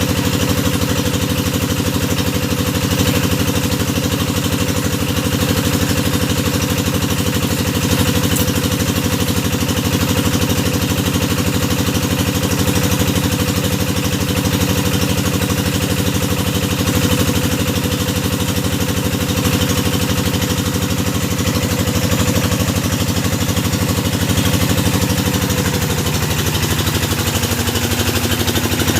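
Engine of a hydraulic deep-well drilling machine running steadily. Its note changes a little near the end.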